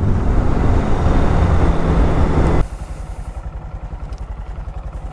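Motorcycle riding with heavy wind rush over its engine note. About two and a half seconds in, the rush cuts off abruptly, leaving the engine's quieter, even putter at low speed or idle.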